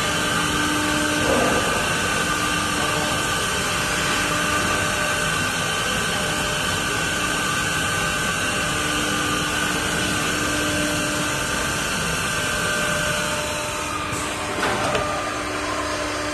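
Automatic door-lock drilling machine running: a steady mechanical whir with several motor tones, a lower one coming and going. The higher tone stops about 13 seconds in, and there are brief noises about a second in and near the end.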